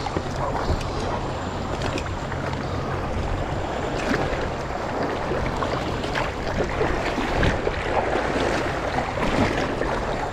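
Water splashing and churning steadily as swim fins kick a float tube through shallow sea water.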